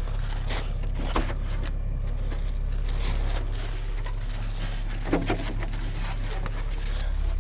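Rigid foam insulation boards being handled and set against a concrete foundation wall: scattered scrapes and light knocks, two of them clearer, about a second in and near five seconds in, over a steady low hum.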